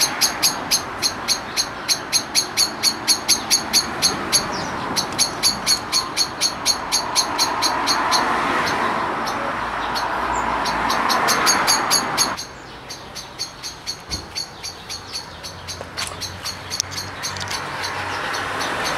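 A cat crunching dry kibble, a rhythmic run of crisp crunches about four a second. Behind it a rushing background noise swells and cuts off suddenly about twelve seconds in, after which the crunching is fainter.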